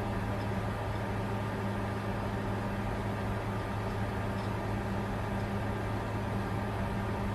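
Bitcoin mining computer running under load: a steady whir of cooling fans over a constant low hum, with no change throughout.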